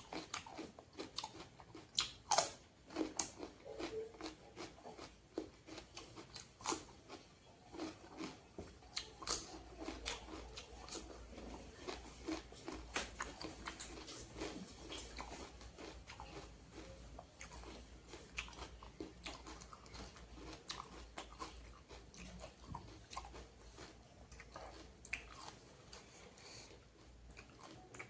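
Close-miked mouth sounds of someone eating pork curry with raw onion and salad: biting, chewing and crunching in a dense run of small clicks, with a few louder sharp crunches near the start.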